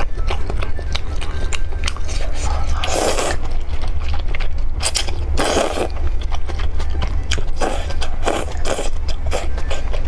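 Close-up eating sounds of a person eating noodle soup: wet chewing and mouth clicks throughout, broken by several loud slurps of noodles, the longest about five seconds in. A steady low hum runs underneath.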